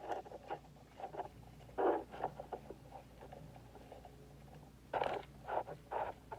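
Short bouts of rustling and light clicking from wires and small electrical parts being handled during a wiring repair, with a low steady hum underneath.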